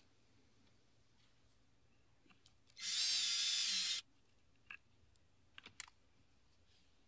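Drill driving a pocket-hole screw through a flexible shaft extension in one burst of about a second, about three seconds in, the motor pitch rising and then dropping as the screw seats. A few light clicks follow.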